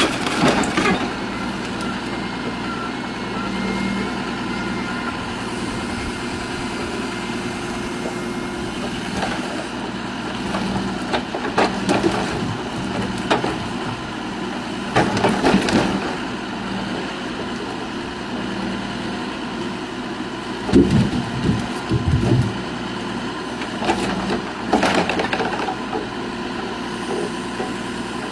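Heavy wood-cutting machine running steadily, with several bouts of wood cracking and splintering as it cuts.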